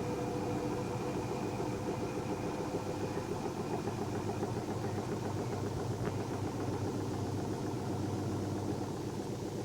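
Washing machine running with a steady mechanical sound and a fine rapid flutter; a faint whine fades out about four seconds in, and there is a light click about six seconds in.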